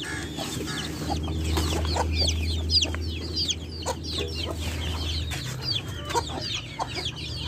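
A flock of young chickens peeping, many short high chirps overlapping one another without a break.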